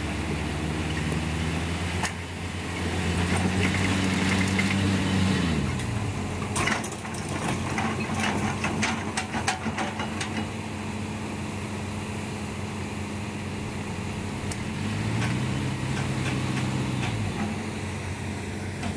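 Diesel engines of a Hitachi excavator and a small flatbed truck running. The engine note rises, holds for a few seconds and drops back twice as the excavator's bucket pushes the truck up the riverbank. A burst of sharp clattering knocks and scrapes comes about seven to ten seconds in.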